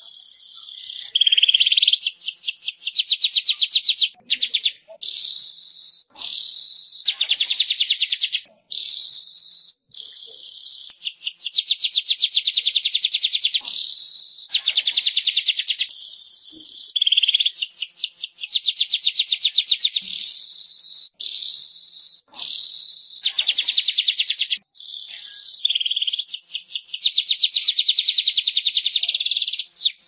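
Weaver (burung manyar) singing: loud, high-pitched, buzzy chattering trills in phrases of one to three seconds with brief gaps between them.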